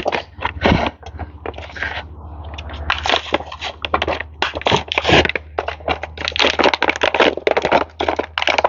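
Dense, irregular crackling and crunching handling noise, thickening about three seconds in.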